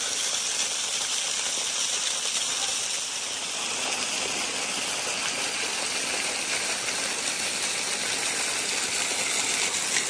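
Small waterfall running down a wet rock face: a steady rush of falling and splashing water.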